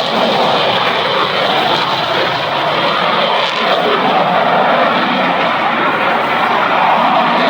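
Jet noise from an F-35 Lightning II's single turbofan engine: a steady, loud rushing noise that holds at one level.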